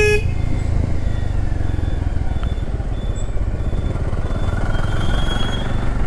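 Bajaj Avenger 160's single-cylinder engine running as the motorcycle rides along, with wind and road noise. There is a short horn beep right at the start.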